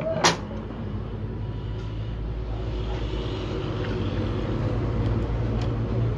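A single sharp click about a third of a second in, over a steady low engine rumble that grows slightly louder toward the end.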